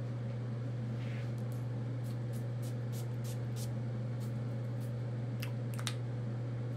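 A steady low hum, with a run of light, sharp clicks and ticks between about one and a half and six seconds in, the last two a little stronger.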